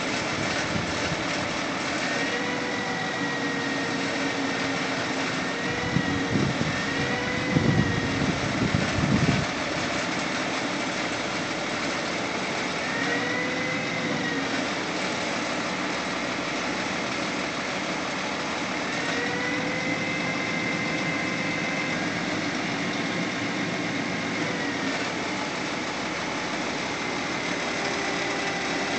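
Truck engine running to power its mounted hydraulic crane, with a whine that rises and falls in pitch several times as the crane boom lifts the load. About six seconds in, a few seconds of low rumbling.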